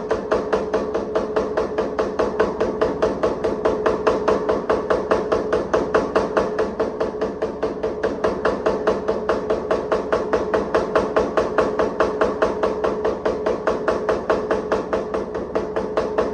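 Hammer blows on hot damascus steel, fast and evenly spaced at about four or five a second, with a steady metallic ring between strikes.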